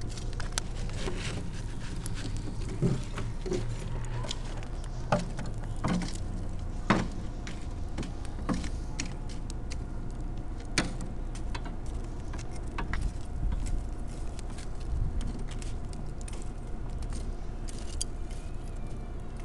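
Irregular clicks, taps and light metallic knocks as chicken drumsticks and metal tongs are moved about on a metal grill grate over an open fire, with a steady low rumble underneath.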